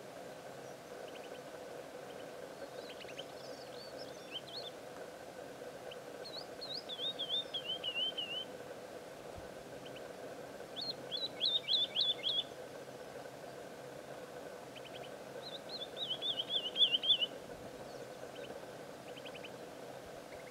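Woodlark singing: three phrases a few seconds apart, each a quick run of notes sliding down in pitch, the middle one a string of repeated notes. Fainter short notes come between the phrases, over a steady low hum.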